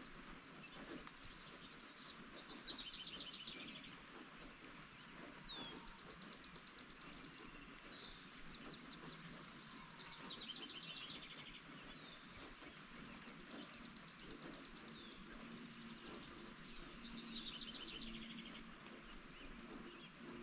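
Steady rain with songbirds singing over it: high, fast trilled phrases come every few seconds, some falling in steps and some held at one pitch.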